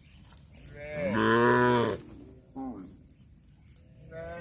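Cows mooing: one long, loud moo about a second in, a short call a little later, and another moo starting near the end.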